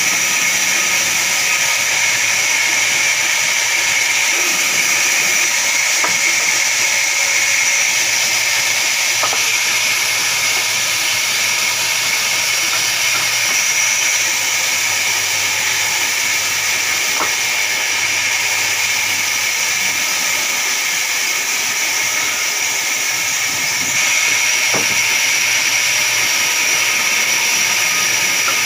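Large vertical band saw running and ripping a log lengthwise: a steady, loud, hissing whine of the blade in the wood, with a few faint ticks, getting a little louder near the end.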